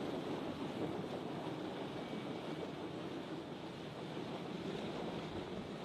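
CH-53 heavy-lift helicopter flying overhead with an underslung armoured vehicle, its rotor and turbines making a steady, even noise.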